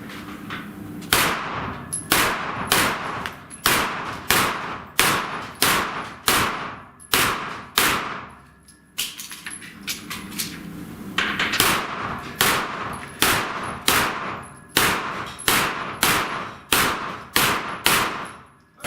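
Pistol-calibre gunshots at steel plates in a shooting match: two strings of about ten shots each, roughly one every 0.7 s, each shot with a short ringing tail, with a pause of about four seconds between the strings.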